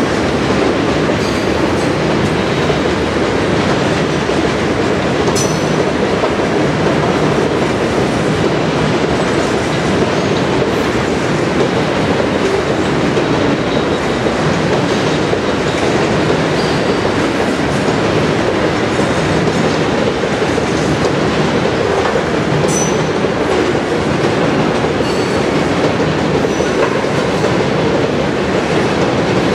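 Covered hopper cars of a long freight train rolling steadily past: a continuous rumble of steel wheels on rail, with a few brief, faint high squeals from the wheels.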